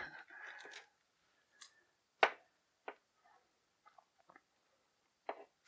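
Light, sharp clicks of hard plastic, five or so spread over a few seconds, the loudest a little past two seconds in: a G.I. Joe Sigma 6 Duke action figure and its small pistol being handled as the pistol is fitted into the figure's hand and the arm is posed.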